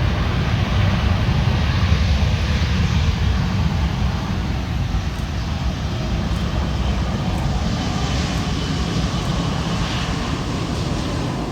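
Airliner engines with a loud, steady, deep rumble as a plane takes off or lands close by, easing a little near the end.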